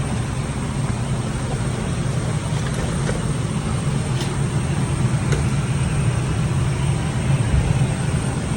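Steady low rumble and hiss of an airliner cabin, with a few faint clicks.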